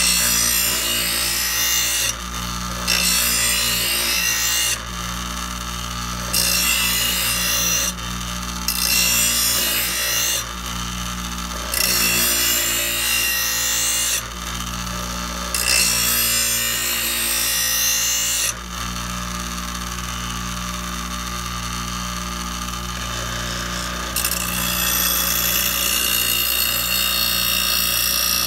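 Ryobi 6-inch bench grinder running with a steady hum while a lawnmower blade is drawn across the spinning wheel to sharpen its cutting edge. It makes about six short passes of harsh grinding, each a second or two long, then the motor runs alone for several seconds before a longer grinding pass near the end.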